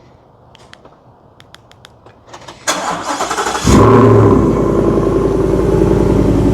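A 2021 Ford F-150's 5.0 V8 with a Borla cat-back exhaust being started: a few light clicks, then about a second of starter cranking. The engine catches with a loud flare and settles into a steady idle.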